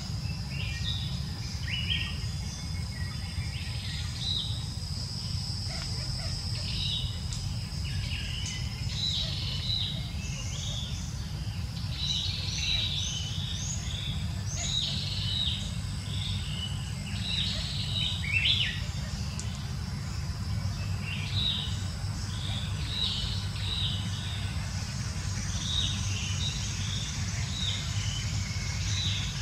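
Many birds chirping in short, repeated calls over a steady high insect whine and a low rumble.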